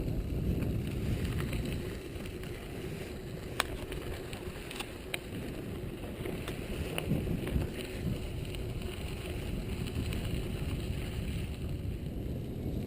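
Wind rumbling on the microphone of a moving mountain bike, with tyre noise from the dirt track and a few sharp clicks of the bike rattling.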